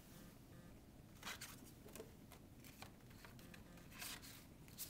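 Faint rustling and scraping of a photo card being handled and slid into a pocket chart's clear plastic pocket, a few soft rustles with the clearest just over a second in and about four seconds in.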